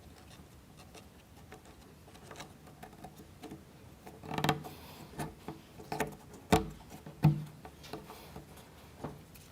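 Plywood model-kit parts and wooden toothpicks clicking and knocking faintly as a wooden wheel part is handled and pressed onto the toothpicks, with a few sharper knocks past the middle.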